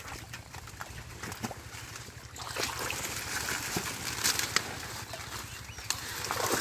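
Shallow muddy water sloshing and splashing and water hyacinth leaves and stems rustling as the plants are pulled up by hand, with scattered light clicks at first, growing denser and louder from about two and a half seconds in.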